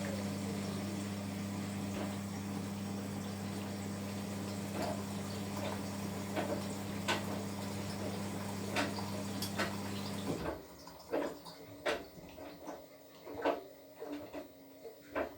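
Washing machine running with a steady low hum and water sloshing and knocking inside the drum. About ten seconds in the hum cuts off suddenly, leaving scattered sloshes and clicks.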